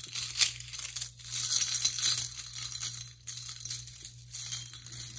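Bunches of metal ball chains and sublimation dog tags jingling and clinking as they are handled and shaken, in many small irregular clicks.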